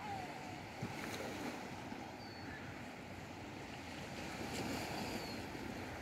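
Steady wash of small sea waves on a sandy beach, with a short soft knock just under a second in and a few faint, short high whistles.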